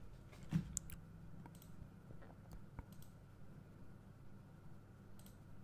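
Faint, scattered clicks of a computer mouse, about seven or eight irregular clicks over a low steady hum.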